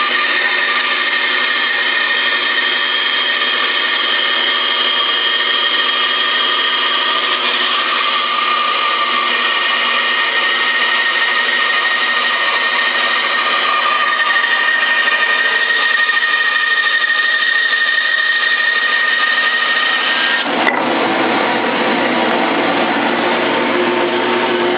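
Davis & Wells 20-inch bandsaw running steadily, resawing wood, a loud, even sound with held high tones. About twenty seconds in there is a sharp click and the sound turns abruptly rougher and lower.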